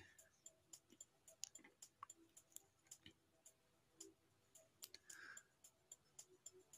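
Near silence with faint, scattered clicks, several a second.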